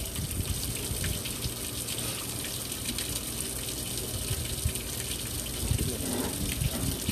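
Water running steadily from a hose onto a wet stone fish-cleaning counter, with small scrapes and taps throughout as a knife works at the skin of a dorado.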